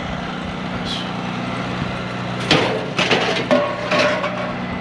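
A vehicle engine idling steadily. About two and a half seconds in, scrap metal is picked up and handled: a quick run of metal clanks and knocks, one with a short ringing tone.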